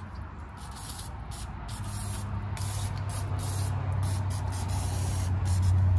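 Aerosol chlorinated brake cleaner hissing out through its straw in repeated spurts onto a rear drum-brake backing plate. A low steady hum comes in about two seconds in and grows louder to become the loudest sound near the end.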